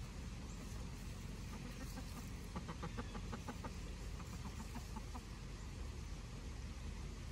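Chickens clucking: a quick run of short clucks, about five a second, from a little past two seconds in to about five seconds, over a steady low background rumble.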